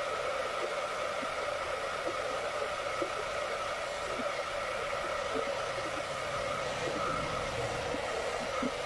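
Handheld hair dryer running steadily on one setting, a rushing whir with a steady hum in it, blowing warm air over a screen-printing screen to dry its fresh coat of photo emulsion.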